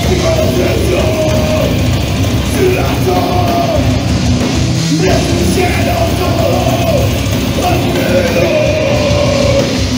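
Heavy metal band playing live: electric guitars, bass and drums, loud and dense throughout.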